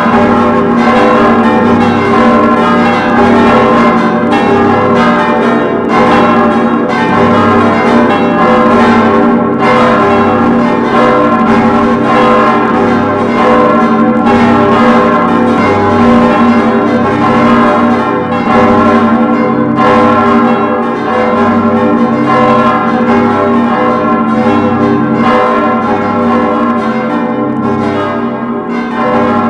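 Church bells ringing continuously, many strikes overlapping so the tones of several bells ring together without a break.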